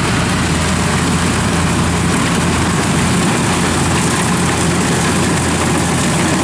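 Kubota DC-93 rice combine harvester running under load as it cuts and threshes standing rice: a steady, loud engine drone mixed with the rushing noise of the threshing machinery.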